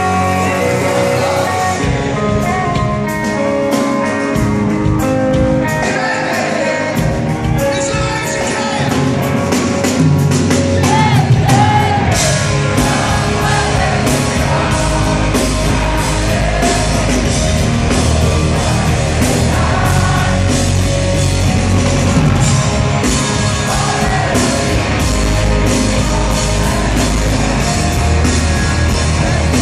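Live rock band playing through an arena PA, heard from among the crowd: electric guitars, a drum kit keeping a steady beat, and singing. The low end gets fuller about twelve seconds in.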